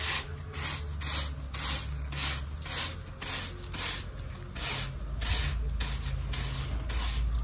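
Long-handled yard broom sweeping over gravel and dry leaves, a steady run of scratchy swishes at about two strokes a second.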